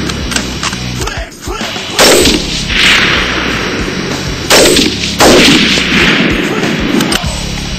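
Three loud gunshots, about two seconds in, at four and a half seconds and again just after five seconds, each trailing off in a long fading echo.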